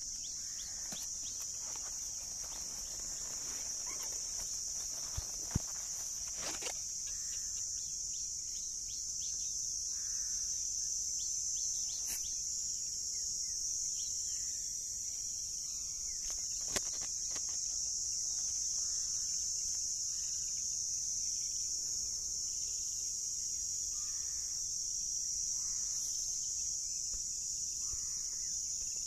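Insects shrilling steadily in a continuous high-pitched drone, with a few sharp ticks; the loudest come about five and a half and seventeen seconds in.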